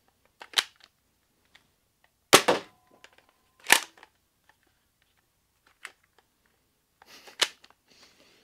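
Nerf Rival Curve Shot Flex spring blaster being loaded and fired: a series of sharp plastic snaps and clacks, with the loudest shots about two and a half and nearly four seconds in, and more handling clicks near the end.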